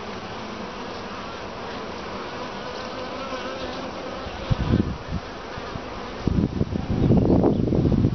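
Honey bees buzzing in a steady hum on a comb frame lifted out of the open hive. From about four and a half seconds in, low buffeting rumbles on the microphone come and go and are loudest near the end.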